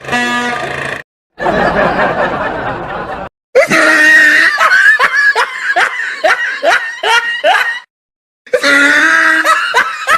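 A loud train-style air horn blasts for about a second, followed by a rush of noise. Then comes several seconds of laughter in quick repeated bursts, with another laugh starting near the end.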